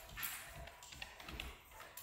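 Faint scattered taps and soft footfalls on a wooden floor: dogs' claws clicking as they move about.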